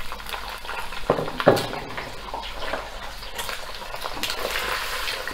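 Boiled mutton pieces frying in hot oil in a clay handi, with a steady sizzle, while a spatula stirs and scrapes them against the earthenware pot. There are a couple of knocks about a second and a half in.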